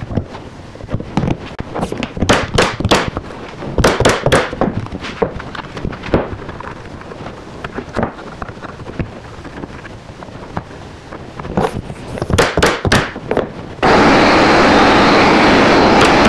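Pneumatic nail gun firing nails and staples into OSB and wood: a dozen or more sharp shots, often in quick runs of two or three. Near the end a loud, steady rushing noise starts.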